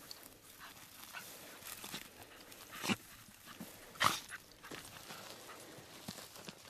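Two short, sharp yips from a Brittany pointer puppy, about three and four seconds in, over the low rustle of walking through dry brush on rocky ground.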